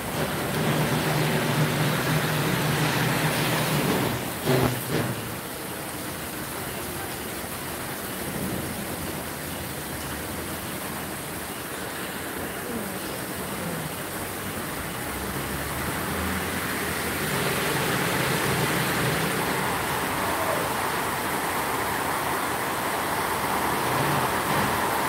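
Steady rain falling on a wet street. There is a low rumble through the first few seconds and a couple of sharp knocks about four and a half seconds in. The rain's hiss grows louder about two-thirds of the way through.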